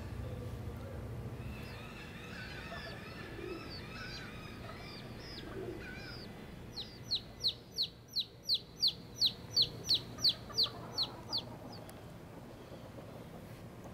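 Chickens calling: soft, high chirps and clucks from a hen with chicks, then a fast run of about fourteen loud, high-pitched chirps, each sliding downward, about three a second, ending a couple of seconds before the end.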